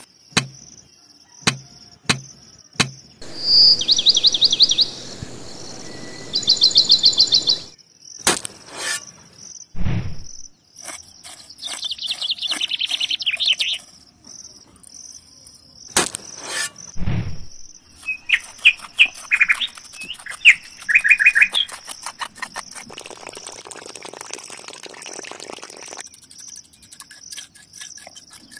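Small birds chirping in short, fast high trills over a steady high insect buzz. Scattered sharp clicks and a couple of low knocks come from a metal knife scraping and tapping in a small clay pot of gravel and cement.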